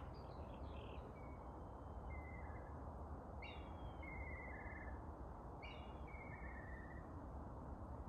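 A songbird singing three phrases, each a high note sliding down into a lower warbling trill, about two seconds apart, over a steady background hiss.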